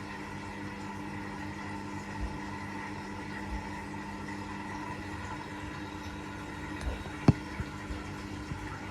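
Washing machine running with a steady motor hum, with a few short knocks, the loudest about seven seconds in.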